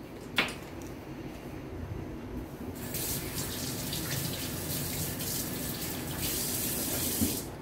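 Water running from a kitchen tap: a steady hiss that swells about three seconds in and stops abruptly near the end. A single click comes just before it, near the start.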